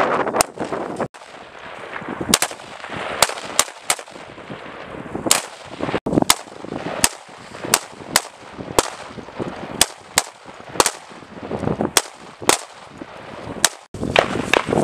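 M4 carbines fired in single shots, a long string of sharp cracks at about one to two a second.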